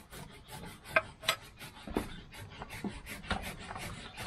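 Fresh banana leaf crackling and rustling as hands fold it into a parcel: quick, irregular crinkles with a few louder snaps.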